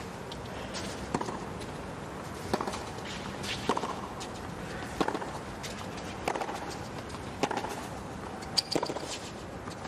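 Tennis rally: a ball struck back and forth by rackets, with sharp hits about every second and a quarter, around eight in all, over a low steady crowd background.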